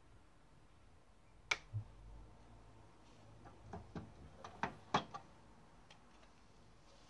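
Pioneer PD-F606 CD changer being opened: a sharp click and a soft low thump about a second and a half in, then a cluster of light clicks and knocks from its door mechanism and the disc being handled.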